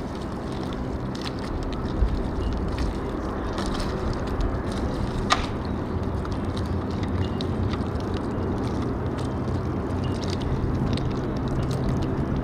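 Steady low hum of a boat motor running on the water, with two sharp knocks about two and five seconds in.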